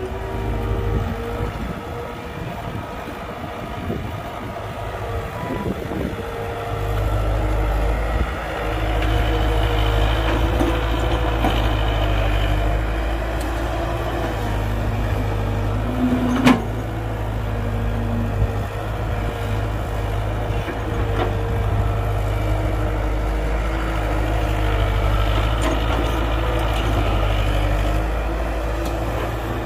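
Heavy diesel engines of an excavator and dump truck running steadily, growing louder about seven seconds in, with one sharp knock about halfway through.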